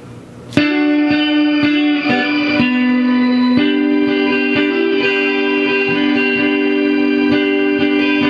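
Fender Stratocaster electric guitar played through effects in a slow gospel-blues style: it comes in suddenly about half a second in, then holds ringing notes that change pitch every second or so.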